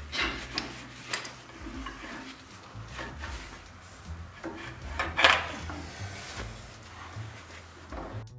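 Rubber hydraulic hoses being handled and pulled through a tractor's frame by hand: irregular rubbing, rustling and light knocks of hose and fittings against metal, with a rag being worked over them. The loudest is a sharp knock about five seconds in.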